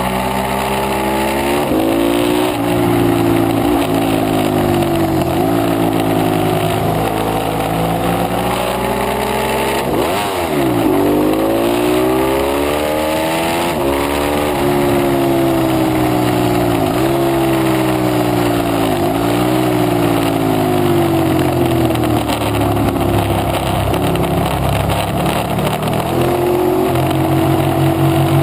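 Ducati 848 Evo Corse SE's L-twin engine under hard acceleration: its pitch climbs through the revs and drops sharply at each upshift, several times over, falling away and climbing again about ten seconds in. A steady rush of wind noise runs underneath.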